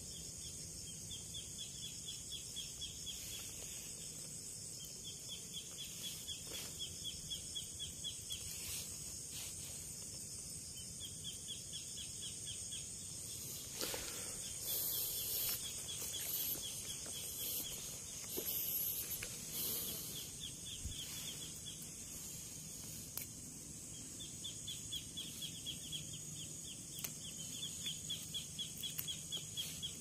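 Rural field ambience: a steady high-pitched insect buzz, with rapid pulsing trills that come and go every few seconds. Around the middle, louder scuffing and rustling of footsteps over dry ground and leaves.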